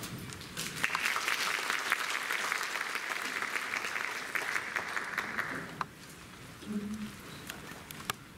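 Audience applauding in a concert hall, starting about a second in and dying away after about five seconds, with a few stray claps after.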